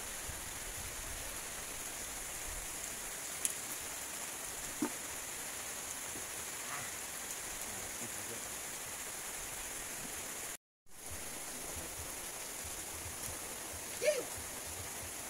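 Steady rushing hiss like flowing water, with a continuous high whine above it and a few faint clicks; the sound cuts out for a moment about eleven seconds in.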